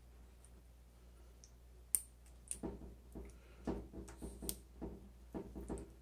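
Faint handling of small plastic connectors and wire leads: a sharp click about two seconds in, then a run of short clicks and soft rustles as front-panel header leads are fitted into a Gigabyte G Connector block.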